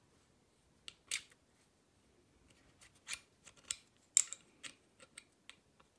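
Small sharp clicks and scrapes of metal parts being handled as the end cap is fitted onto the brass end of a Precihole PX100 air rifle's tube: about ten irregular ticks, the loudest about four seconds in.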